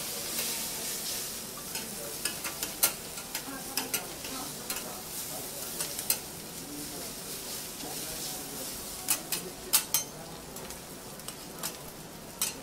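Yakisoba noodles and cabbage sizzling on a hot steel teppan griddle, with sharp clicks and scrapes from two metal spatulas tossing and turning them. The clicks come in bunches, around two to four seconds in and again just before ten seconds.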